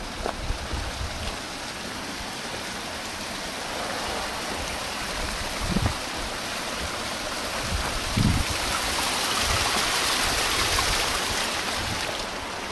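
Rushing water of a small mountain stream tumbling over rocks, a steady hiss that swells in the second half. A few dull thumps, twice in the middle, sound over it.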